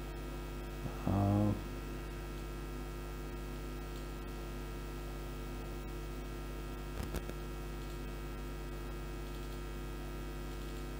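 Steady electrical mains hum with many steady overtones, picked up by the recording chain. A short voice sound comes about a second in, and a brief click near seven seconds.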